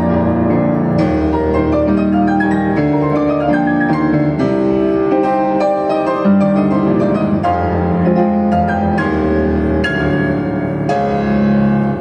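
Grand piano played live: a flowing piece with sustained bass chords changing every second or two under a melody line moving higher up.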